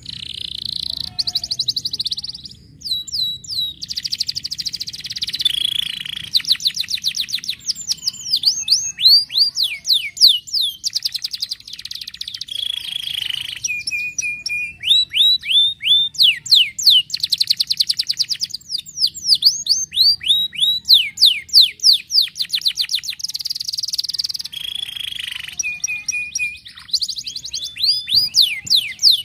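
Domestic canary singing a long, continuous song: fast trills and runs of quickly falling notes, broken by a few held, evenly trilled notes.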